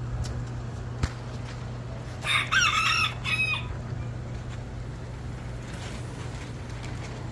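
A bird calling once, loudly, for about a second and a half, with a short break before its last part, over a steady low hum.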